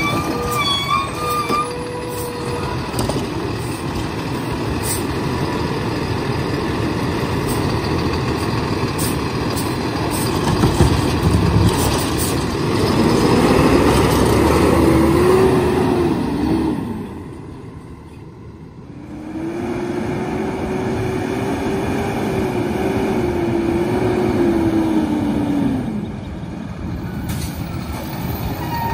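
Diesel engine of a Kenworth garbage truck with an automated side-loader arm idling and then revving up and down as the hydraulic arm grabs and empties a cart, giving two long rising-and-falling whines. Short hisses of air brakes as the truck stops and moves off.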